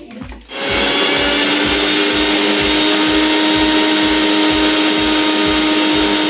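Electric mixer grinder (Pigeon) running at a steady speed, its stainless steel jar grinding a thick coconut-and-leaf chutney paste. The motor switches on about half a second in and holds a steady whine.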